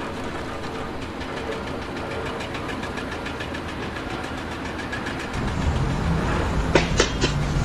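An engine running with a rapid, regular knock. It gets louder with a deeper rumble about five seconds in, and a few sharp knocks follow near the end.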